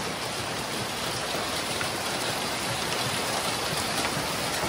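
Steady rain falling on gravel and stacked lumber: an even hiss dotted with many small drop ticks.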